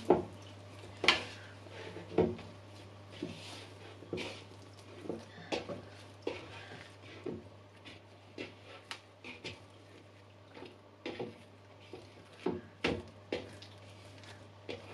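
Risen yeast naan dough being kneaded again by hand in a bowl, knocking it back after its rise: irregular soft thumps and knocks, about one a second.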